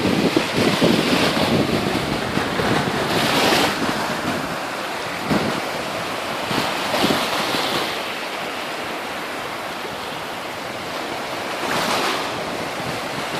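Sea waves washing ashore, swelling and breaking every few seconds, with wind buffeting the microphone.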